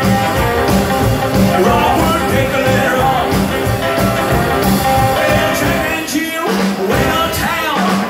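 Rockabilly band playing live: a male singer over acoustic rhythm guitar, upright double bass, drums and electric lead guitar, with a steady driving beat.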